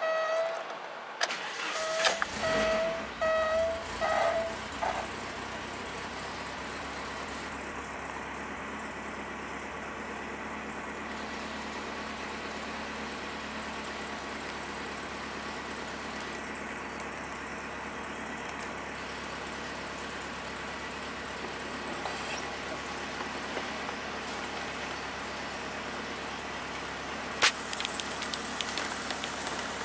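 1987 Alfa Romeo Spider Quadrifoglio's twin-cam four-cylinder engine starting from cold: it cranks and catches about two seconds in while a dashboard warning chime pings repeatedly, then the chime stops and the engine settles to a steady idle, heard from inside the cabin. A single sharp click comes near the end.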